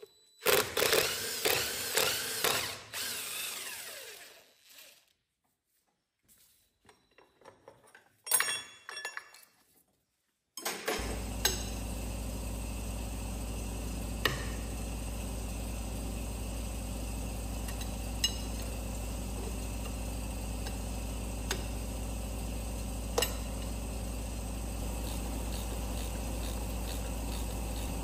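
A handheld power tool running in short bursts with its speed rising and falling, then a few brief bursts. From about ten seconds in, a steady low hum takes over, with occasional sharp clicks.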